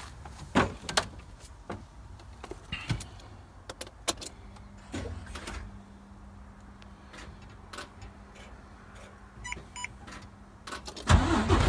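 Clicks and knocks of handling in a truck cab, a steady low hum coming on about four seconds in and a few short beeps near the end. Then the Volvo semi truck's diesel engine cranks on its newly fitted starter and starts, loud, in the last half-second.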